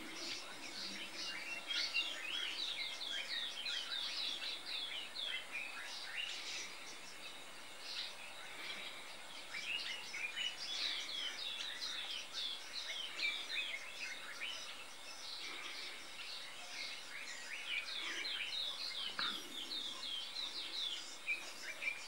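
Small birds chirping: many short, high notes in quick runs, overlapping one another, over a faint steady background hiss.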